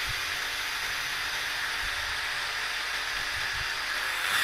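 Cordless battery-powered 400 PSI portable pressure washer running: a steady electric pump whine under the hiss of the water jet, getting a little louder near the end.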